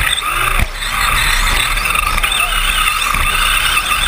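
Electric 2wd RC short-course trucks racing on a dirt track: a motor and gear whine that rises and falls in pitch with the throttle.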